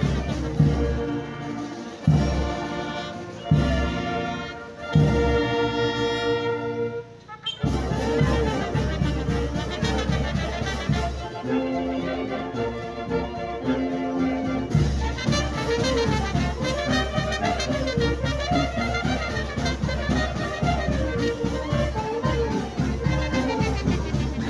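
Live brass band playing: a few long held chords separated by short breaks, then from about eight seconds in a continuous lively tune over a steady bass beat.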